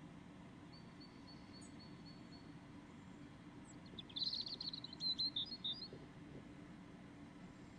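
A small bird chirping: a quick high trill about four seconds in, then a few short notes, over a faint steady low hum.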